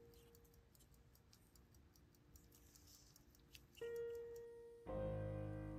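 Faint, fast ticking of a 1922 Elgin B.W. Raymond 19-jewel pocket watch movement, which is running at low balance amplitude. Background music comes in with a held note about four seconds in, then a fuller chord a second later, louder than the ticking.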